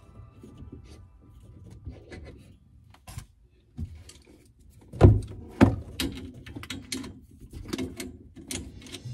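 Irregular knocks and clicks of objects being handled, the two loudest knocks about five seconds in, a little over half a second apart.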